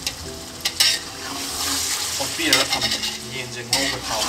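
Metal tongs stirring chicken in sizzling masala in an aluminium pot, clinking against the pot's side several times.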